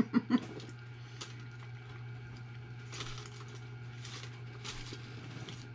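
A man chewing a mouthful of bacon cheeseburger: a few faint, scattered soft clicks and smacks over a steady low hum.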